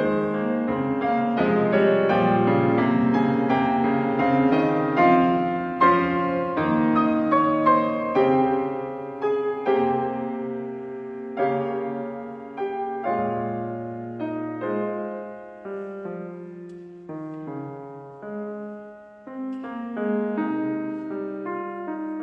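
Yamaha grand piano played solo: a continuous stream of struck notes and chords, loudest early, gradually quieter through the middle, then swelling again near the end.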